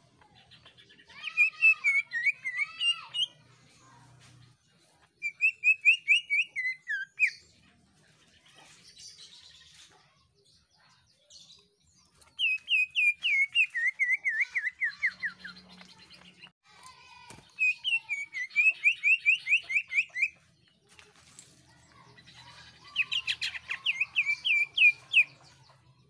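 Green leafbird (cucak ijo) singing its shrill, screeching song in five loud bursts of rapid repeated notes, a few seconds apart. Some bursts slide downward in pitch.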